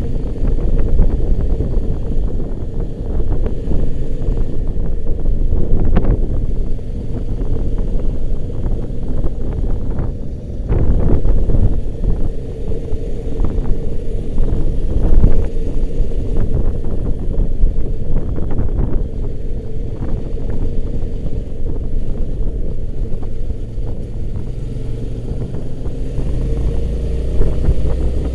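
Motorcycle on the move: the engine running steadily under heavy wind buffeting on the microphone.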